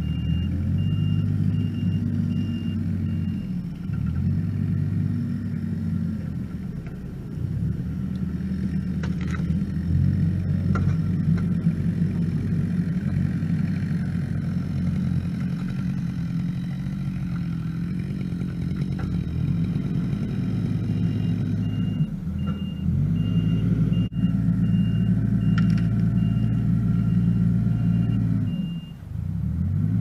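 Kubota R430 articulated wheel loader's turbo diesel engine revving up and down repeatedly as the machine works the grapple and moves. A reversing alarm beeps steadily near the start and again through most of the second half.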